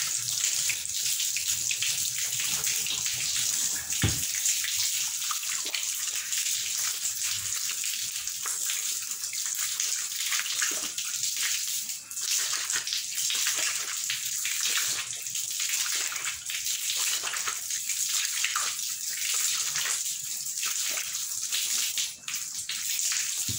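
Water running from a hose onto a cloth filter bag as it is rinsed clean by hand, a steady splashing rush with brief dips about halfway through and near the end.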